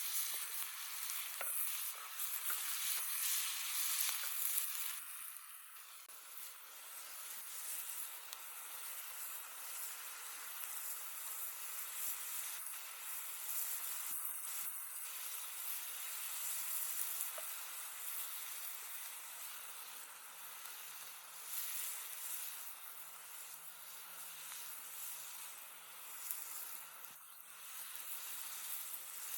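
Food frying in hot oil in a pan: a steady sizzle, with a few short clicks or knocks along the way.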